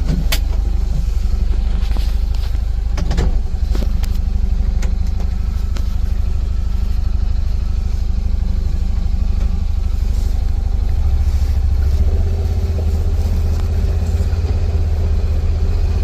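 A motor vehicle running with a steady low engine and road rumble, and a few knocks and rattles in the first few seconds.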